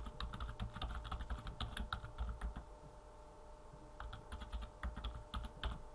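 Typing on a computer keyboard: a quick run of keystrokes, a pause of over a second about halfway through, then a second run of keystrokes.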